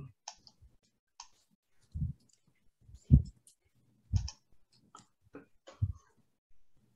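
Computer mouse and desk clicks, with a few soft thumps: about eight or nine irregular, separate clicks made while a screen share is being started.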